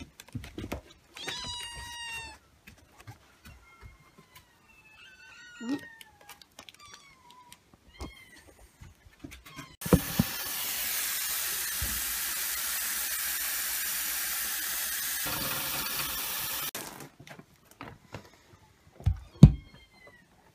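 Several kittens mewing in high, thin, gliding calls, then tap water running into a stainless-steel sink for about seven seconds, and two knocks near the end.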